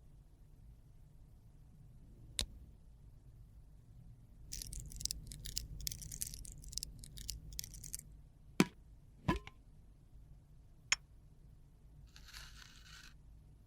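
Close-up handling of makeup and its packaging: a few sharp clicks and taps, with a few seconds of scratchy crinkling and scraping in the middle and a brief scrape near the end.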